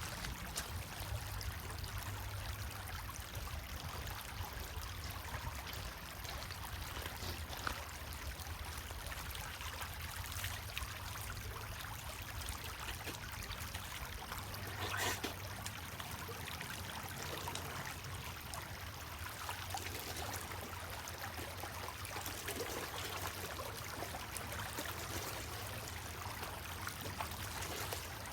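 Running water trickling steadily, with a low rumble underneath and a single sharp click about halfway through.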